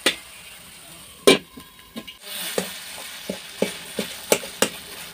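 A spatula stirring tomatoes and spices in a metal kadhai: sharp knocks of the spatula against the pan, a loud one a little over a second in, then frying sizzle from about two seconds with quick repeated scrapes and clinks.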